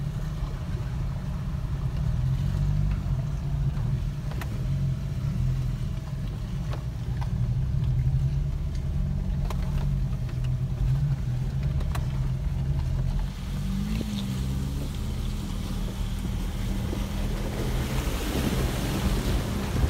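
Jeep Wrangler engines running low and steady as the vehicles crawl over rock, with a few light knocks.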